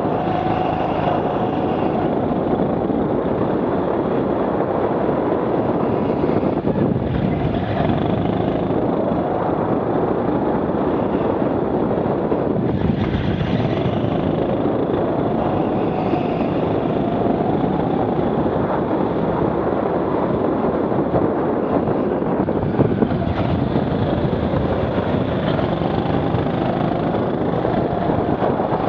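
Rental go-kart being driven hard around an indoor track, its engine note rising and falling over and over as it accelerates out of corners and eases off into them.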